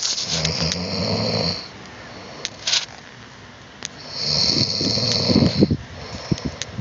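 A person snoring: two long snores about four seconds apart, each a low rumble with a breathy hiss.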